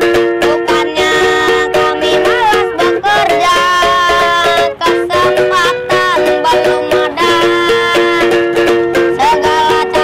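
Background music: a fast strummed rhythm under a melody with sliding notes, at a steady loud level.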